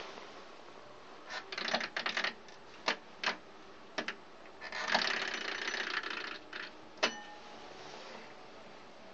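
Doorbell buzzer with a fart-like sound, sounding in a run of short bursts and then one longer buzz of about a second and a half, ending with a sharp click.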